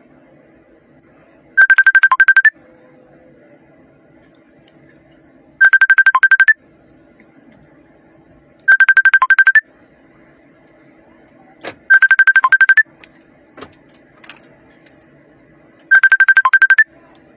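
Telephone ringtone ringing: five loud trilling rings, each a rapid run of high-pitched pulses about a second long, repeating every three to four seconds. A faint low hum and a few soft knocks lie between the rings.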